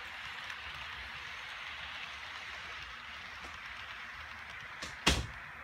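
HO-scale model trains running on the layout: a steady hiss of wheels rolling on the rails, with a few faint ticks. A single sharp knock about five seconds in.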